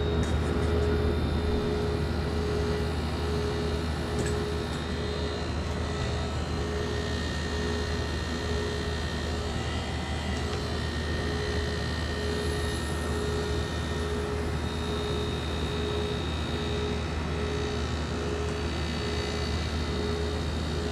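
Window-type air conditioner running while it is charged with refrigerant: a steady low compressor and fan hum, with a faint tone pulsing about once a second.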